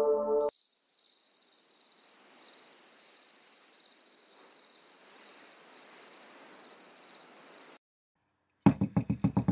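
Crickets chirping in a steady, pulsing high trill, cutting off about eight seconds in. After a moment of silence, a quick run of sharp knocks, about seven a second, starts near the end.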